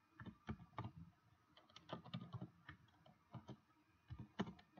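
Faint, irregular keystrokes on a computer keyboard, in short runs of typing with brief pauses between them.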